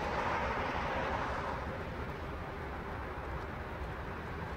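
Steady low rumble with a broad hiss over it, as a tanker ship passes close by; the hiss is strongest in the first second or two and then eases slightly.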